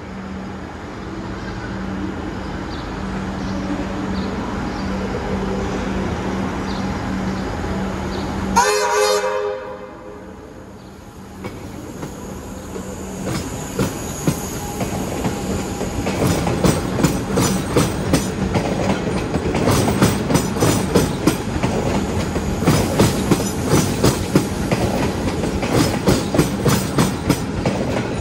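Melbourne suburban electric train: a steady hum, then a horn sounds once, briefly, about a third of the way in. Later an electric train runs close by, its wheels clacking rapidly over the track.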